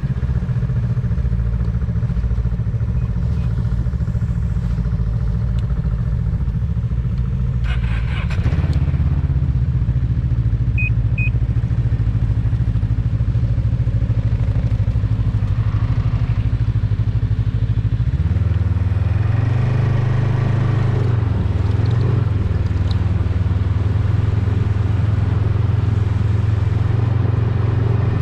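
Ski-Doo snowmobile engines idling just after being started. About eighteen seconds in the sound settles into a lower, steady drone as the sled pulls away and runs along the trail.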